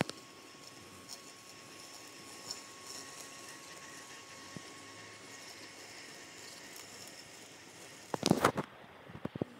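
WORX Landroid robotic lawn mower running quietly as it cuts grass, a faint steady whine over low background noise. Near the end, a loud, rough noise lasting about half a second, then a few shorter ones.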